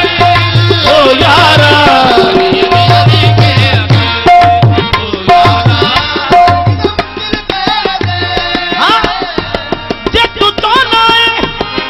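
Instrumental passage of a qawwali: harmonium melody with held notes and running phrases over a steady hand-drum rhythm.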